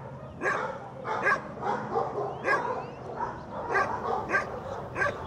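Dogs barking repeatedly, short sharp barks coming about twice a second at uneven intervals.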